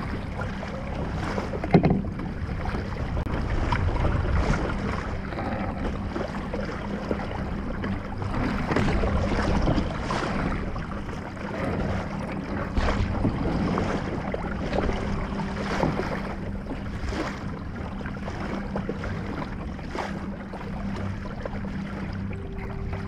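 A motor-driven fishing kayak under way: a steady low hum from its electric motor under the splash and slosh of water along the hull, with wind on the microphone. Scattered knocks on the hull, the sharpest about two seconds in, as the line of a snagged crab pot is hauled in.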